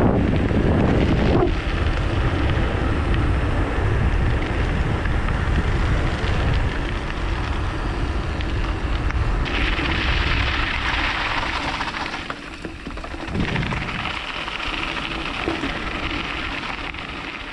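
Wind buffeting the microphone of a camera on a bicycle riding fast downhill, a heavy rushing rumble mixed with the hiss of the tyres rolling over the road. The rush eases somewhat after about twelve seconds.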